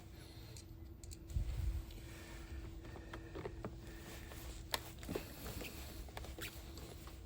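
Scattered light clicks and taps of small hardware being handled, with a low bump about a second and a half in and a faint steady hum underneath.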